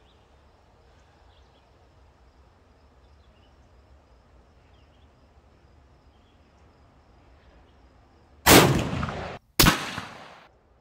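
.30-30 lever-action rifle fired with regular factory ammunition: a loud report with a ringing, echoing tail about eight seconds in, then after a brief dropout a second loud report about a second later. Before that there is only faint background.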